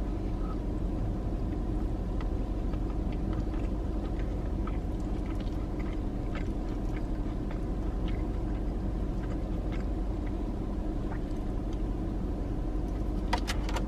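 Steady low hum inside a car cabin, with faint clicks of chewing and of a plastic fork against a plastic food tub, the taps growing denser near the end.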